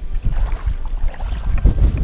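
Wind buffeting the body-worn camera's microphone as a rumbling roar, with water sloshing around legs wading through knee-deep shallows.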